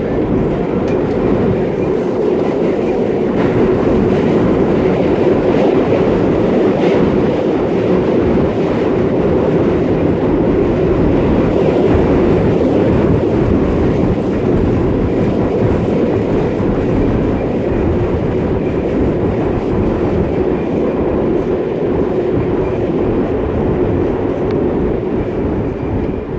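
New York City subway train running at speed, heard from inside the car: a steady, loud noise of wheels on the track.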